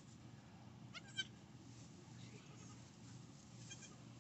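Newborn Nigerian Dwarf goat kid giving one brief, high-pitched bleat about a second in and a fainter one near the end, over a low steady hum.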